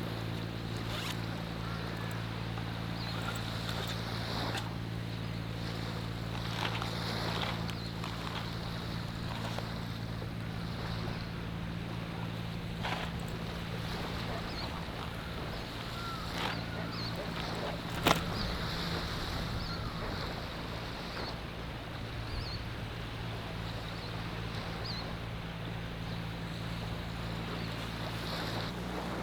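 Sea waves washing on the shore under a steady low motor hum. There are a few faint clicks and a single sharp knock about 18 seconds in.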